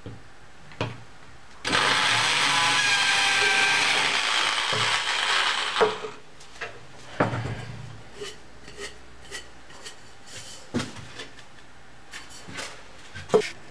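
Electric drill running as it bores a small hole through the thin aluminium wall of a stove cylinder, starting about two seconds in and stopping after about four seconds. Then comes a series of light clicks and knocks from the metal cylinder being handled on the bench, with a sharper knock near the end.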